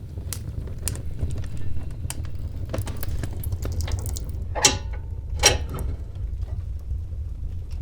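Fire burning in a fireplace: a steady low rumble of flames with scattered sharp crackles, and two louder pops about halfway through.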